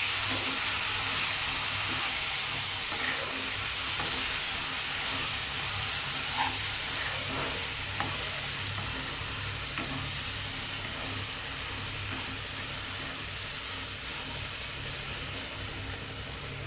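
Vermicelli, ground nuts and jaggery syrup sizzling in a buttered pan while being stirred, with a steady hiss that eases slowly as the mixture cooks down and thickens. There are a few faint knocks in the pan.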